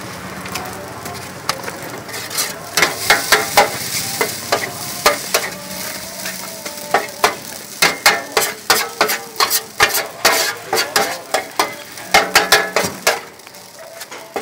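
Noodles frying on a large flat iron pan, the oil sizzling, with a metal spatula scraping and clacking against the pan in quick, uneven strokes from about two seconds in.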